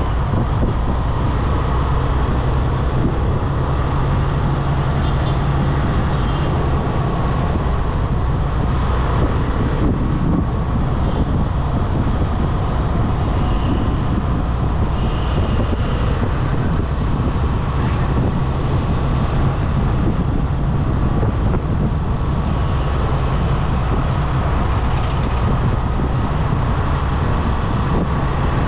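Steady road and engine noise of a vehicle driving along a highway, with a constant low hum. A few faint, brief high tones from other traffic come through now and then.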